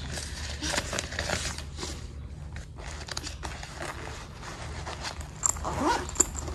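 Vietnamese polymer banknotes rustling and crinkling in irregular bursts as they are handled and counted out, over a low steady hum.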